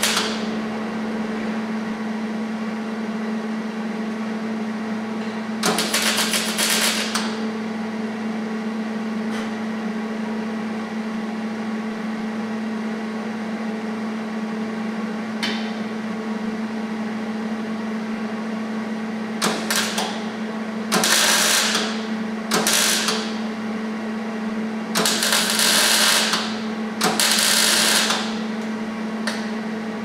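Welder laying short bursts of weld on steel subframe connectors, each a second or so of crackle, about five in all, over a steady hum. The bursts are spaced out so the metal can cool between welds and the nearby lines don't overheat.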